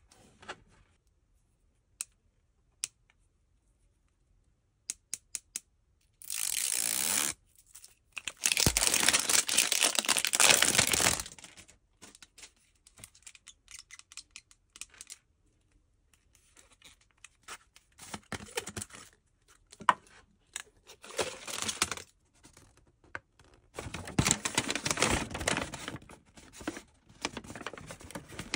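Plastic toy packaging being opened and handled: a few sharp clicks near the start, then a long stretch of plastic wrap tearing, then repeated bursts of crinkling from foil packets and a folded paper instruction sheet.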